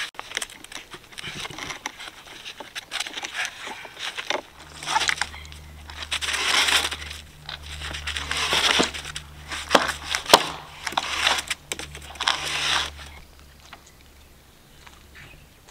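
Black plastic water pipe being handled and dragged over a gravel driveway: irregular scraping, rustling and crinkling with scattered clicks of gravel, over a low rumble through the middle.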